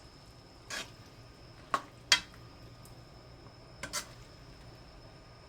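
A cooking utensil knocking and clinking against a pan of noodles: a handful of brief, sharp knocks, two of them close together about two seconds in.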